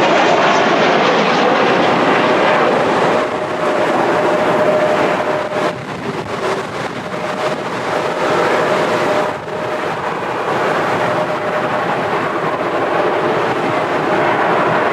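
Korean Air Boeing 737-900's CFM56 jet engines running through a landing, a loud steady roar with a steady whine over it.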